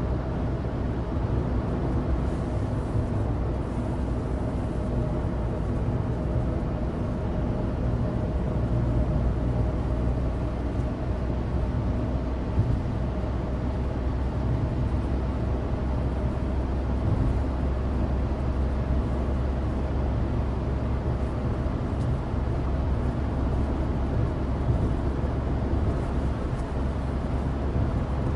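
Inside the cabin of a moving Suzuki Alto Turbo RS (HA36S): its 660 cc turbocharged three-cylinder engine runs steadily under road noise from studless winter tyres on dry tarmac.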